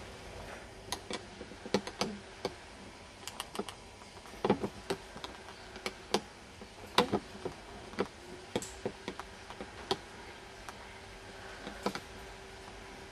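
Budgerigars tapping and clicking about a wire cage with its perches and toys: irregular sharp clicks, some in quick little runs, over a faint steady hum.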